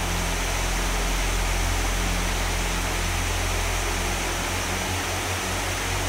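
Waterfall rushing steadily into a rock pool: a dense, even hiss of falling water with a low rumble underneath.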